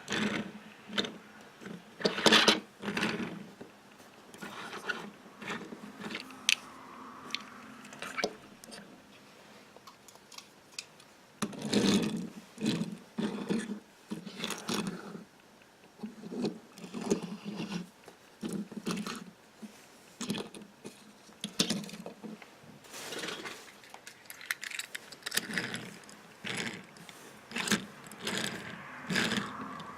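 Small toy cars and their packaging being handled: irregular sharp clicks, clatters and scrapes, with short low buzzing sounds between them.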